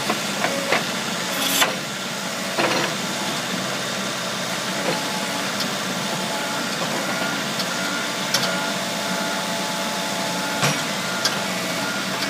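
Case 580 Super N backhoe loader's four-cylinder diesel engine idling steadily, with a few light clicks or knocks here and there.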